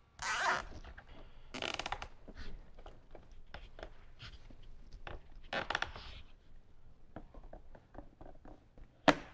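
Nylon zip ties being pulled tight around a power wire: a few quick ratcheting zips, with small handling clicks between them and a sharp click near the end.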